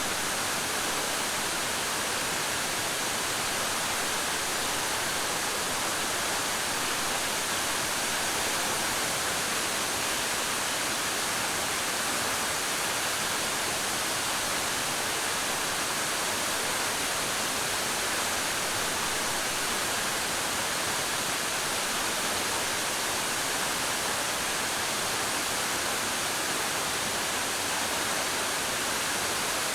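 Waterfall crashing steadily: an even, unbroken rush of falling water.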